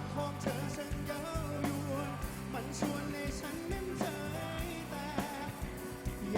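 A pop-rock band playing live, with a wavering melody line over a steady bass and drum backing.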